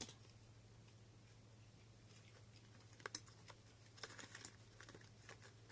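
Faint crunching of a cat biting crunchy Greenies treats: a few sharp clicks about three seconds in and a quick cluster about a second later, over a low steady hum.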